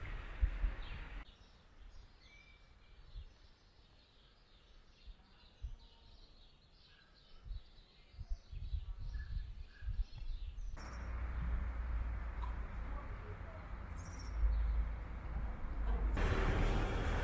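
Small birds chirping and twittering against a quiet background. A louder low rumble with steady noise fills the first second and returns about two-thirds of the way through, rising again near the end.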